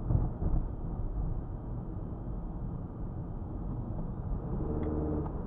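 Car driving along a city street, heard from inside its cabin through a dashcam microphone: a steady low rumble of engine and tyres.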